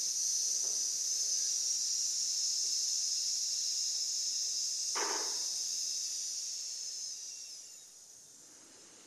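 A long, steady "sssss" hiss breathed out through the teeth: the Lung Sound of the Taoist Six Healing Sounds, held on one slow exhalation and fading out about eight seconds in. A short soft noise sounds under the hiss about five seconds in.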